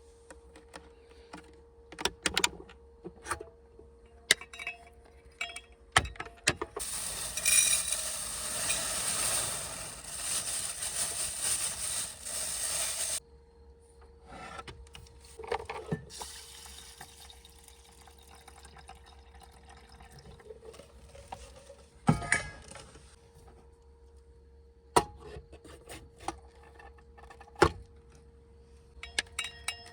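Scattered clinks and knocks of cookware being handled, with about six seconds of water pouring in the middle that stops abruptly. A faint steady hum runs underneath.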